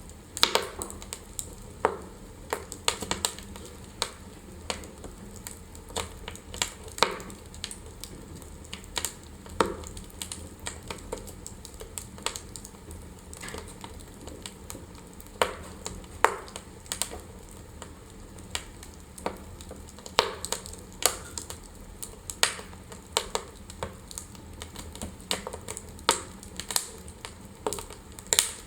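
Wood fire burning in a fireplace, crackling with irregular sharp pops and snaps over a low steady rumble.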